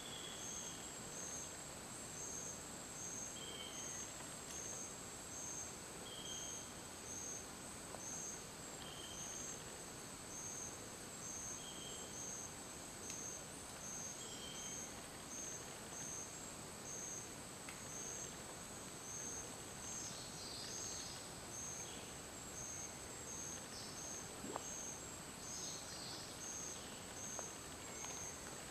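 Rainforest insect chorus: a steady high buzz with a second, evenly pulsing trill just below it. A short, high note repeats about every three seconds during the first half, and a few brief chirps come in the second half.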